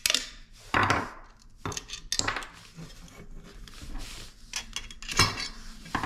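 Metal clinks and clicks of a hand tool and clamp hardware as the crossbar brace on a steel handlebar is unbolted and its parts handled. There are a few sharp clinks, with the loudest near the end.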